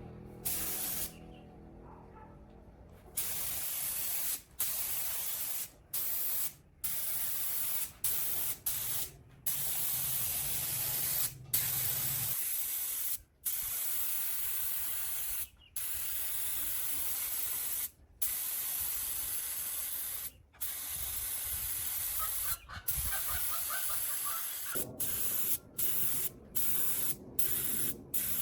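Compressed-air paint spray gun hissing as a coat of paint is sprayed onto a heavy truck, in long passes broken by many short pauses.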